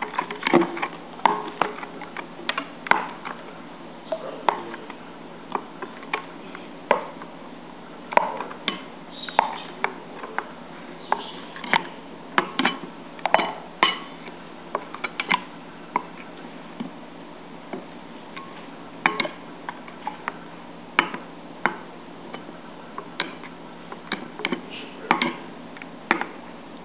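Metal spoon stirring batter in a glass mixing bowl, clinking and tapping against the glass at irregular intervals, sometimes several clinks in quick succession.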